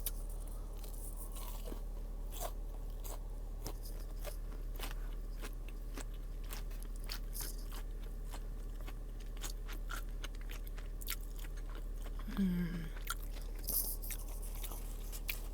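A person biting and chewing crunchy fried food, a steady run of crisp crunches. A brief voiced sound falling in pitch comes near the end.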